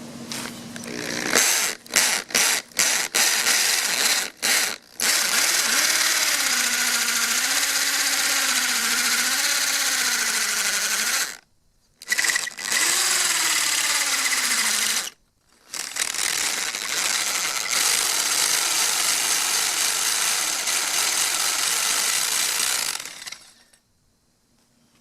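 Power drill boring into concrete with a masonry bit. A few short trigger bursts come first, then long stretches of drilling broken by two brief stops around the middle, with the motor's pitch wavering under load. It stops shortly before the end.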